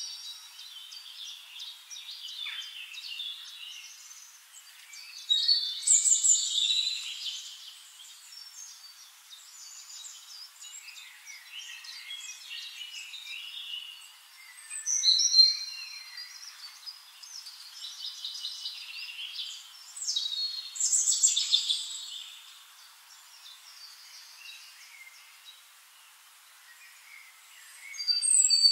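Wild birds singing and chirping in several loud bursts of high trills, with softer twittering in between.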